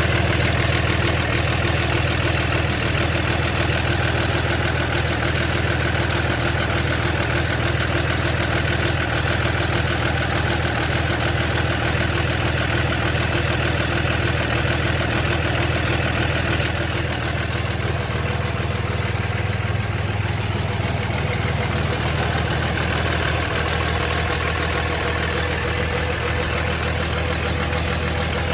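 2006 Cummins 5.9-litre inline-six turbo diesel idling with the weird rough idle the owner is chasing. It runs steadily and gets slightly quieter about seventeen seconds in.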